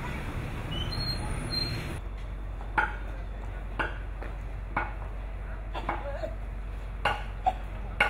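Sharp chopping knocks at fallen tree branches, about one a second, each with a slight metallic ring. A steady rushing noise fills the first two seconds before the shot changes.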